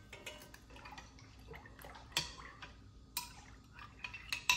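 Scattered light clicks and taps of kitchen containers being handled while warm milk and a packet of yeast go into a bread machine pan for dough.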